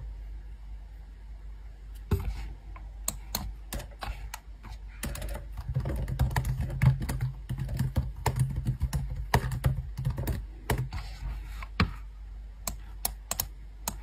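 Fingers typing on a laptop keyboard: quick, irregular key clicks over a low steady hum.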